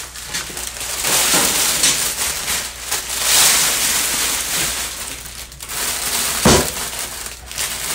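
Clear plastic shrink-wrap crinkling and rustling loudly as it is pulled off a cast iron grill grate, with a single thump near the end.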